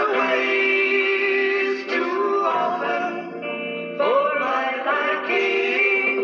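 Rock band playing live, with sung voices holding and bending notes over the instruments; a new vocal phrase comes in about four seconds in.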